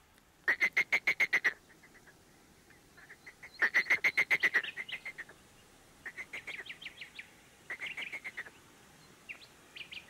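Animal calls in repeated bouts. Each bout is a rapid run of short, evenly spaced, fairly high-pitched notes, about nine a second for roughly a second. Four or five bouts come with short pauses between them, and the last ones are fainter.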